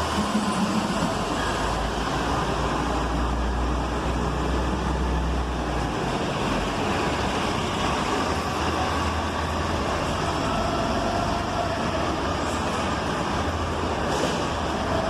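Cabin noise inside a transit bus: the Cummins Westport ISL G natural-gas engine and driveline running under steady road noise. The low engine hum is strong at first and drops away about six seconds in.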